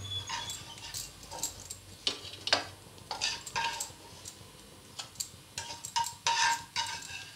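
Spatula scraping and knocking against a non-stick kadai as toasted bread slices are lifted out and set on a steel plate: a string of irregular clatters and taps, some with a brief metallic ring.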